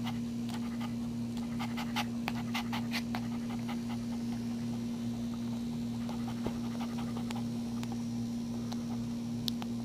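A newborn Maltese puppy nursing at its mother's teat, making many small suckling clicks, thickest a couple of seconds in, while the Maltese mother pants, all over a steady low hum.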